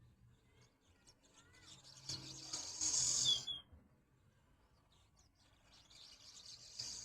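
Swallows twittering. A loud burst of harsh, high chattering comes about two seconds in and ends in a short chirp. Soft chirps come before it, and another burst builds near the end.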